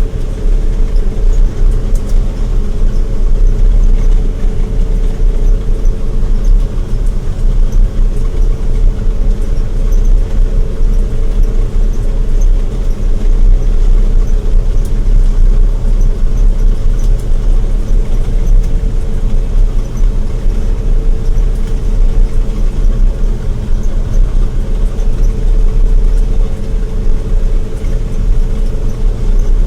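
Combine harvester running steadily while shelling corn: an even, loud, deep engine rumble with a steady hum above it.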